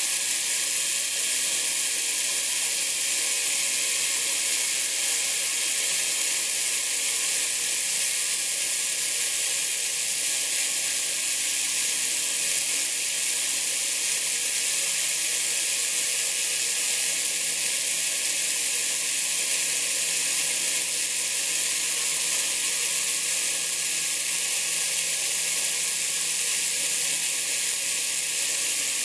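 Homemade belt sander running steadily with its abrasive belt polishing an extrusion screw: an even, high-pitched hiss over a faint steady hum.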